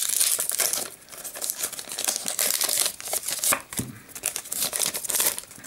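Foil wrapper of a Pokémon TCG Primal Clash booster pack crinkling and tearing as it is opened by hand, in a run of uneven crackles.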